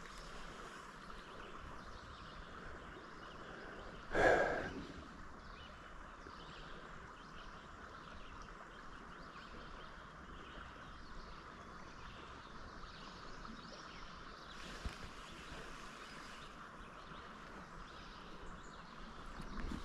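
Quiet outdoor ambience of a slow, calm river: a steady soft hiss, broken about four seconds in by one short, louder rushing sound.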